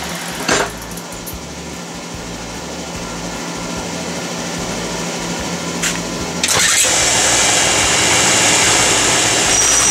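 A shop machine's motor running steadily. About six and a half seconds in, a much louder rushing noise joins it and carries on to the end.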